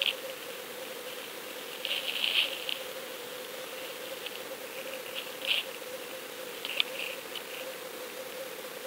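Underwater audio through a fishing camera's waterproof housing as the surf rolls it over the sandy bottom: a steady hiss with a faint steady hum, broken by several short bursts of scratchy crackling, the longest about two seconds in.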